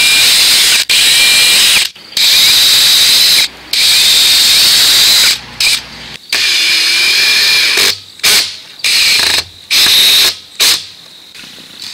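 Cordless drill running at full speed in repeated bursts, boring small screw holes in CPVC tubing. The first bursts last a second or two, and the ones near the end are short and quick.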